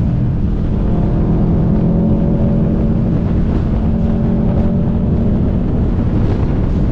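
Car engine running steadily under way, its pitch holding fairly even, over heavy road and wind rumble.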